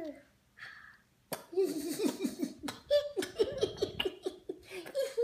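A woman and a toddler laughing together, breaking out suddenly about a second in and going on in quick repeated bursts.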